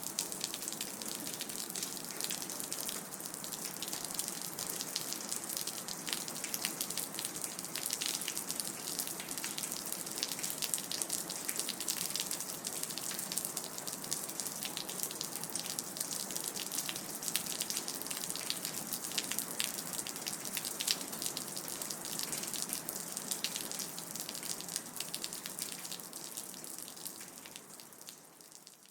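Rain dripping: a dense patter of drops over a steady wash of water. It fades out over the last few seconds.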